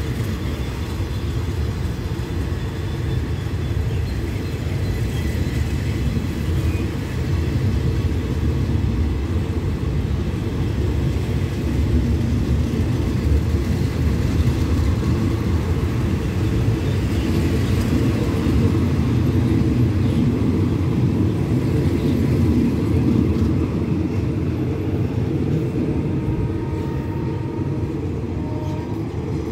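Passenger coaches of a departing diesel-hauled train rolling past at close range: a steady low rumble of steel wheels on the rails, easing slightly near the end as the last coach draws away.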